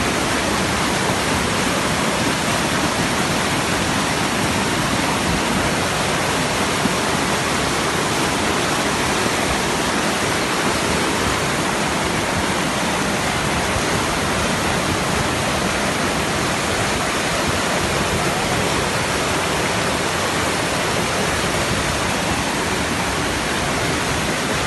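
Muddy floodwater rushing down a street as a fast torrent, a steady, unbroken rush of water strong enough to have torn the asphalt from the road.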